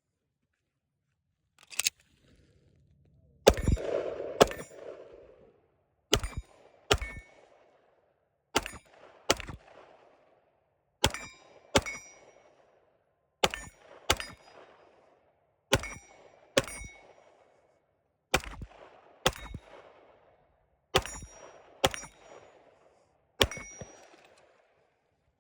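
Pistol shots: one shot, then pairs of shots less than a second apart, repeated about every two and a half seconds. Many shots are followed by a brief metallic ring, typical of bullets hitting steel targets.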